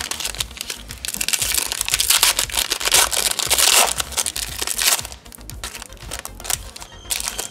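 Foil trading-card pack wrapper being torn open and crinkled, a dense crackling that is loudest from about one and a half to five seconds in, then lighter rustling.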